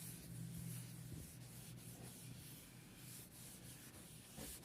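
Faint rubbing as cutting board oil is worked into the surface of an oak end-grain chopping board, over a low steady hum.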